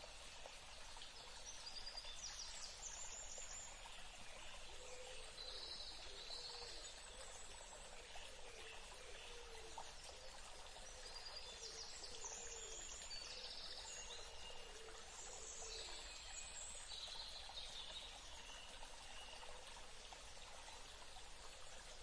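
Shallow forest stream rushing steadily over rocks, with a few short bursts of birdsong over the water several times.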